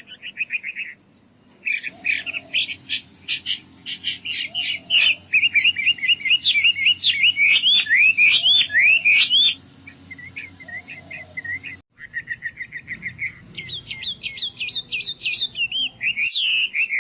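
Birds singing: rapid repeated chirps and trills, with a brief cut-out about twelve seconds in before the song carries on.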